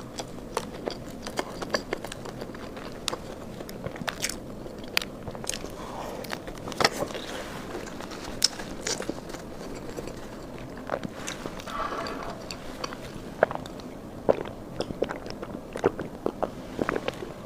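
Close-miked eating: a person biting and chewing food, with irregular wet clicks, smacks and small crunches.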